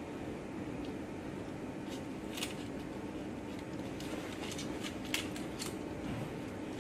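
A few light, sharp clicks and taps over a steady low room hum, most of them bunched together a little past the middle.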